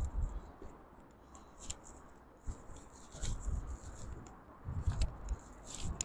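Footsteps of a person walking over rocks and grass: irregular soft thumps with light clicks and crunches.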